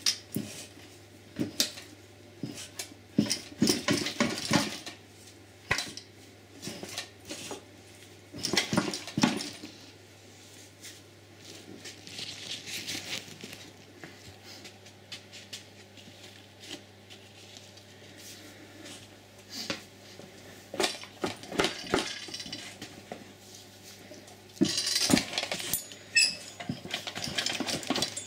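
Irregular metal clanks, knocks and scrapes as an Audi RS6 automatic gearbox is levered and wiggled away from its engine with a pry bar, coming in clusters with short pauses between.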